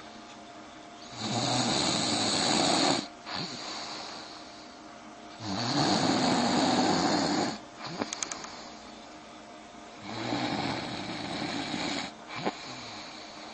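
A man snoring in his sleep. Three long, loud snores come about every four and a half seconds, each lasting about two seconds, with quieter breathing between them.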